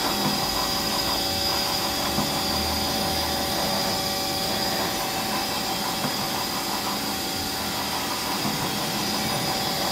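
Haas SL30T CNC lathe turret being jogged along the X axis: a steady servo whine over the machine's running hum.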